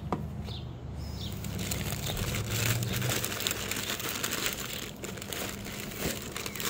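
Tissue paper crinkling and rustling as it is pulled back and a sneaker is lifted out of a cardboard shoebox, a dense run of quick crackles starting about a second in.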